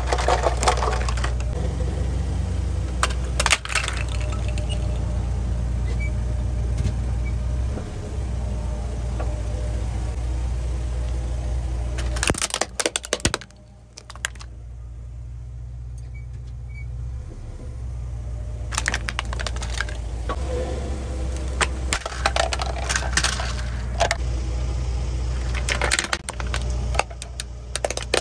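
Plastic toys cracking and snapping as a car tyre rolls over and crushes them, in several separate bouts of crackling, over the steady low hum of the car's engine idling.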